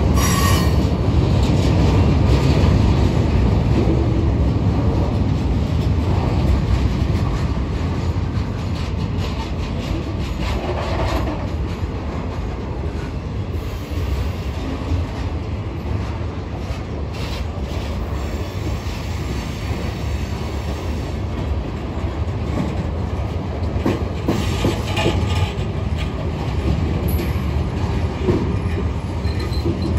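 Long freight train's cars rolling steadily past, a continuous heavy rumble with the wheels clacking over the rail joints and now and then a short wheel squeal.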